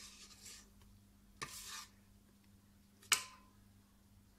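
Faint kitchen handling of cake batter being moved into a cake mould: a short scrape about a second and a half in, then one sharp utensil tap with a brief ring about three seconds in.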